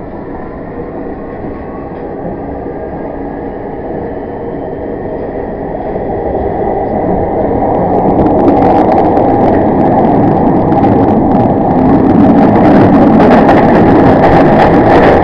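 Underground train heard from inside the carriage, pulling away and picking up speed: a rising motor whine under a steady rumble that grows louder throughout. From about halfway, rapid clattering and rattling of wheels on the track join in and it becomes loud.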